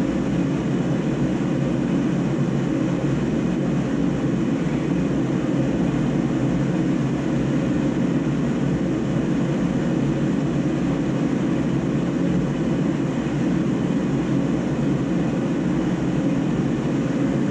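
Steady low rumbling background noise that holds unchanged, with no distinct clicks or other events standing out.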